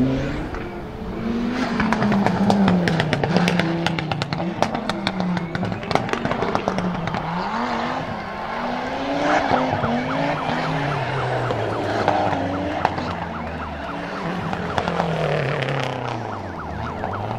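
Audi Quattro Group 4 rally car's turbocharged five-cylinder engine revved hard and repeatedly, its pitch rising and falling about every one and a half seconds, as the car slides and spins its tyres. The tyres squeal, and sharp pops and crackles come thickly in the first half.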